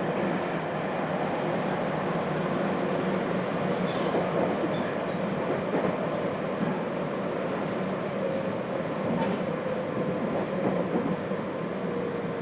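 Running noise inside the motor car of a JR Hokkaido 721 series electric train, which has thyristor phase control: a steady rumble of the wheels and running gear. A faint steady whine joins it about eight seconds in.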